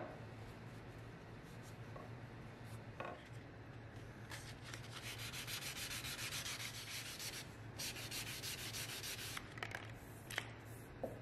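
Hand-sanding a wooden clamp jaw with a 220-grit sanding block: rapid back-and-forth rubbing strokes for about five seconds in the middle, with a short break partway through. A few light knocks come before and after.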